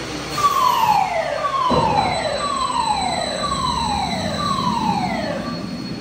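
Mandrill Mayhem launched roller coaster sending its empty test train out of the station: five falling electric whines about a second apart, with a single thump about two seconds in.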